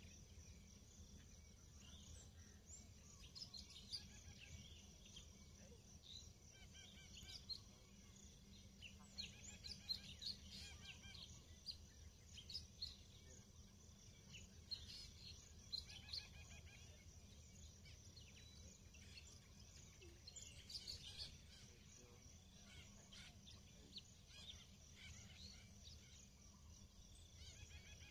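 Faint birdsong: many short, high chirps and twitters scattered throughout, busiest in the first half, over a low steady background rumble.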